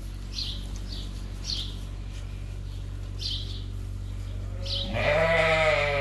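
A sheep bleats once, a loud wavering bleat of about a second near the end. Before it come a few short, high chirps from small birds.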